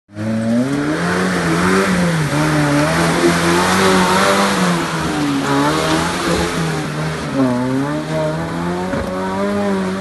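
Off-road 4x4 vehicle's engine revving, its pitch rising and falling repeatedly as the throttle is worked, then holding steadier near the end.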